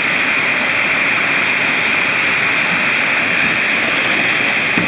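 Steady, loud rush of flowing water, an even hiss with no breaks.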